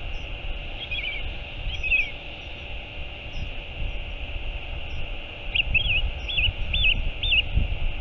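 Gulls calling: a few short calls about a second in and again near two seconds, then a run of about five calls near the end. A low, uneven rumble runs underneath.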